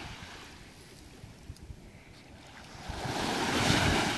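Wind buffeting the microphone over waves washing, with a rush of water that swells up about three seconds in and fades near the end.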